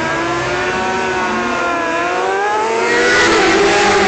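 Road-racing motorcycle engine at high revs coming up the road, its pitch sagging then climbing again, and loudest near the end as the bike comes past close by.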